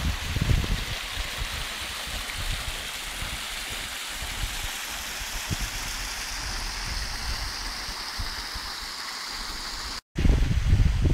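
A small mountain stream runs over rocks with a steady, even rushing hiss. An uneven low rumble sits beneath it. About ten seconds in, the sound drops out for a moment and comes back with a much louder low rumble.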